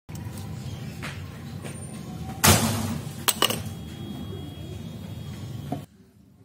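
Stainless-steel padlock set down on concrete: one loud clattering scrape about two and a half seconds in, followed by a couple of sharp metallic clinks, over a steady low hum.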